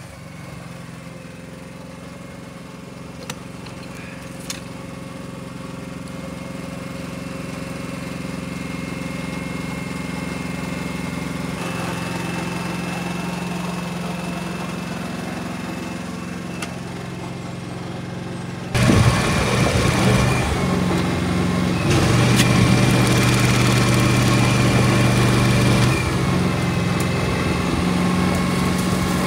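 A small engine running steadily with a low hum. The sound gets suddenly louder about two-thirds of the way through.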